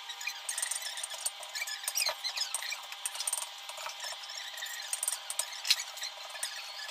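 Kitchen clatter at the counter: many quick light clicks, clinks and scrapes of utensils and crockery, with a short squeak about two seconds in, over a steady hum.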